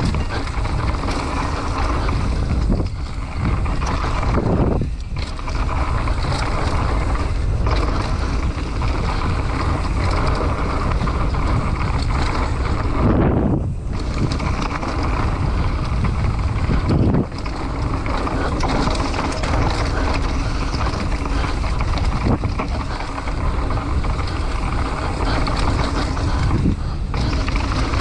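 Mountain bike riding fast down a dirt trail: steady wind buffeting on the microphone over tyres rumbling on the ground. The noise dips briefly a few times, around 5, 13 and 17 seconds in.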